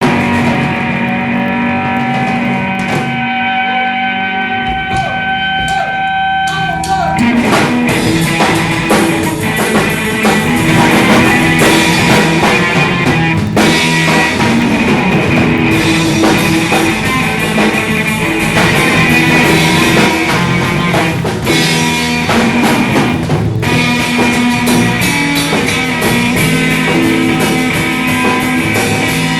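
Rock band playing: a guitar intro with held notes, then drums and the full band come in about seven seconds in and play on steadily.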